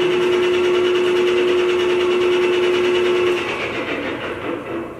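Steady mechanical hum: a droning tone over a noisy rush, which drops away about three seconds in and leaves a quieter, uneven background.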